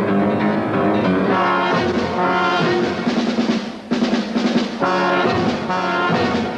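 Brass-led orchestral television theme music: held brass chords over drums, dropping back briefly about four seconds in, then a sharp entry of short accented chords.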